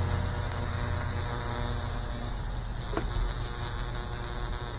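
Steady electrical hum of a 10 kV, 30 mA neon sign transformer driving current through wet wood between two probes, as a Lichtenberg fractal burn spreads and glows. A single sharp snap about three seconds in.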